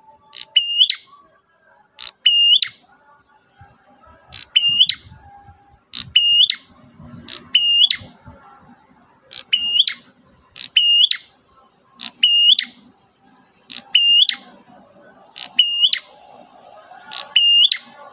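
Prenjak merah calling: the same short, sharp, hooked chirp repeated about every second and a half, about twelve times, in the steady rhythm of a lure recording.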